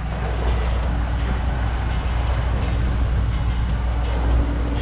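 A fishing boat's engine running with a steady low hum, under a constant rush of wind and water.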